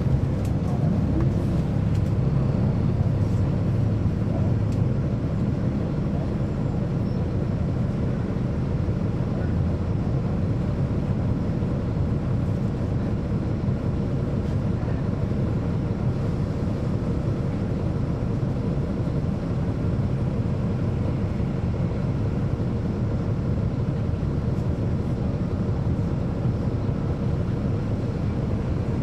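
Caterpillar C13 ACERT diesel engine of a 2009 NABI 40-SFW transit bus running steadily, heard from inside the bus on the move.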